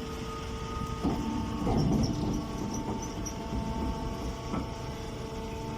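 Automatic horizontal straw baler running: a steady machine hum with a few knocks, near the start and later on.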